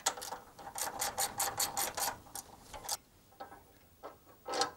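Hand ratchet clicking in quick runs, several clicks a second, while a sway bar end link nut is tightened, then a few scattered clicks and one louder short metallic noise near the end.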